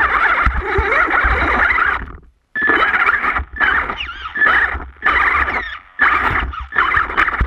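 Onboard sound of an HPI Savage Flux RC monster truck crawling over river rocks: a loud electric motor and gear whine with rattling from the chassis, coming in throttle bursts. It cuts out completely for a moment about two seconds in and drops away several more times.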